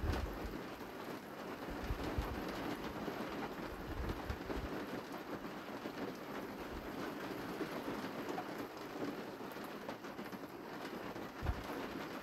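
Steady outdoor hiss with a fine crackle through it. Low wind buffets hit the microphone at the start and again about eleven seconds in.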